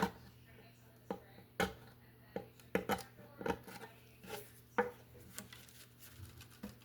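Irregular sharp taps and clicks of small hand tools being handled and worked during repair of a round-back mandolin, about a dozen in under seven seconds.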